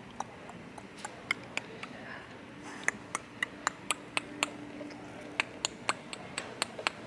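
A string of irregular sharp clicks, roughly two or three a second, over faint indoor background noise.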